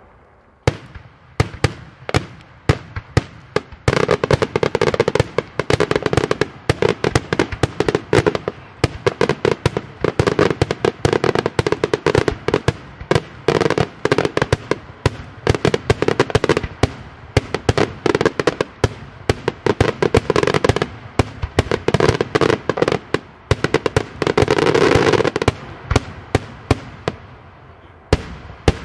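Daytime fireworks bursting overhead: rapid, dense volleys of sharp bangs with crackling between them, building to their heaviest stretch a few seconds before the end, then thinning out.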